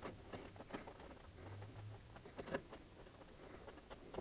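Faint, irregular taps and scratches of a paint-marker tip on a clear plastic RC car body as a crosshatch grille is drawn in.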